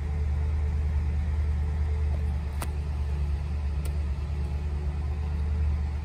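BMW X5 E70 4.8i's 4.8-litre V8 idling steadily at about 1,000 rpm, heard from inside the cabin, with two faint clicks about midway. It runs smoothly on a newly replaced crankshaft position sensor and connector, with no check engine light.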